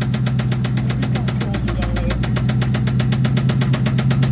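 SN95 Mustang's 2-valve 4.6 L V8 idling, with a fast, even knocking on every turn of the engine: the knock the owners take for a rod knock.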